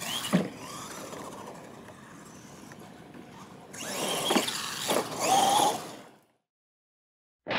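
Radio-controlled monster trucks racing: motors whining up and down in pitch, with sharp knocks as the trucks land and hit things. It grows louder about four seconds in, then fades out about six seconds in.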